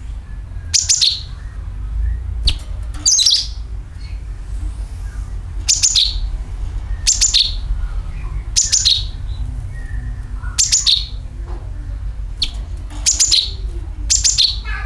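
Cucak kinoi calling over and over, about ten short high notes that each drop quickly in pitch, spaced a second or so apart. A steady low hum runs underneath.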